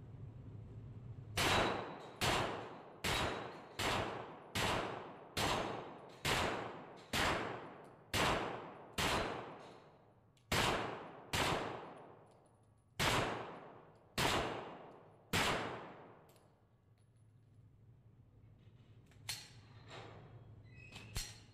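Iron City Rifle Works Berserker 9 pistol-caliber carbine firing 9mm rounds one at a time: about sixteen shots, most a little under a second apart, the last few further apart. Each shot rings off into a long echo in the concrete indoor range. Two faint clicks come near the end.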